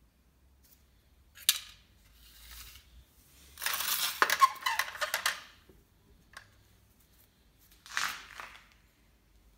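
Loose scrap transistor metal tabs rattling and clinking against each other in a plastic bowl as it is handled, loudest for about two seconds near the middle. A sharp click comes about a second and a half in, and a shorter rattle follows near the end.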